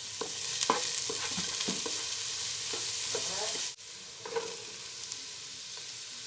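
Diced carrot and garlic sizzling in hot oil in a non-stick pan on high flame, with a spatula scraping and stirring them in short strokes. A little under four seconds in, the sound drops abruptly to a quieter, steady sizzle.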